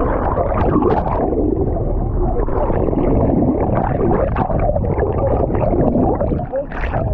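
Loud, steady low rumble of a sport-fishing boat's engines with rushing water, the boat manoeuvring slowly while a marlin is played close by.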